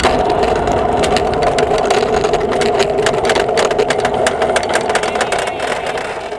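Human-powered aircraft's own mechanical noise heard from the onboard camera as it moves along the runway: a steady two-note hum with rapid rattling clicks, fading near the end.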